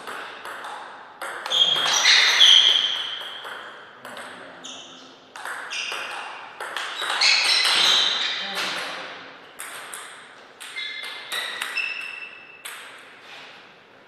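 Table tennis rally: the ball clicking back and forth off the paddles and table in a quick, uneven run of ringing hits, with a few short high-pitched tones among them, stopping about a second before the end.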